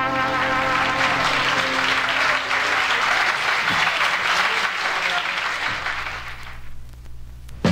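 Live audience applauding on a jazz LP played on a turntable, starting as the brass band's final held chord cuts off and fading away about six and a half seconds in.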